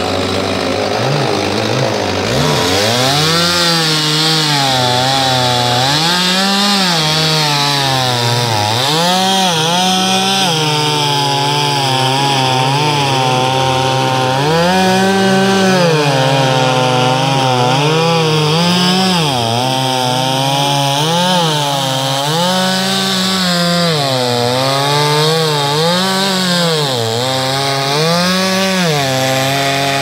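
Two-stroke chainsaw running hard while cutting into a felled tree trunk, its engine pitch dropping and rising again every second or two as it works through the wood. For the first couple of seconds it runs lower and rougher before settling into this rising-and-falling cutting pattern.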